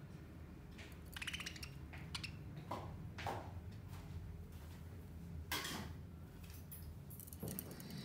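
Budgerigars clambering and pecking on a badminton racquet's strings: scattered light clicks and taps, the sharpest about five and a half seconds in, with a few short high chirps, over a low steady hum.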